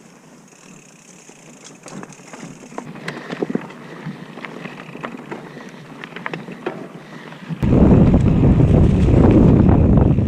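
Mountain bike rolling over a rocky creek bed, with tyre noise and scattered clicks and rattles. About seven and a half seconds in, loud wind buffeting on the microphone suddenly takes over.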